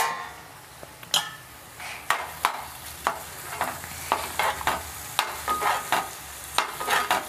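A metal spoon stirring capsicum and tomato curry in a metal pan, with repeated irregular scrapes against the pan starting about a second in. The curry sizzles softly underneath.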